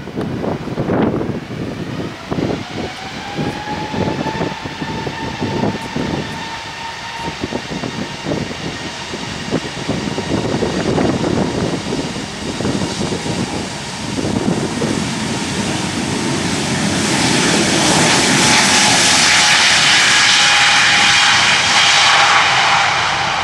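Jet engines of a Spirit Airlines Airbus A320-family airliner spooling up for takeoff. A whine rises in pitch over the first several seconds, then a loud, hissing rush builds from about 17 seconds in as the engines reach takeoff thrust.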